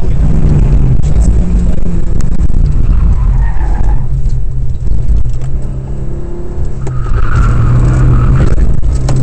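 Rally car engine heard from inside the stripped, caged cabin, running hard under load. It eases off briefly about two thirds of the way through, then pulls again, with tyres squealing in places, most clearly near the end.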